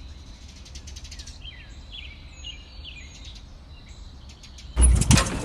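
Wild birds chirping, a series of short gliding calls over a low steady background rumble; near the end a sudden loud clatter cuts in and is the loudest sound.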